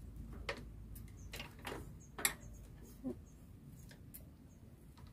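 Open-end spanner clicking and knocking against a bicycle pedal spindle and crank arm as the pedal is being tightened: several irregular metal clicks, the loudest a little before halfway.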